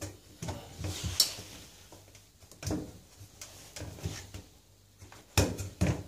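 Handling noises from a washing machine's rubber door seal being pushed in and worked free of the outer drum's front rim: irregular rubbing, clicks and knocks, with a louder knock near the end.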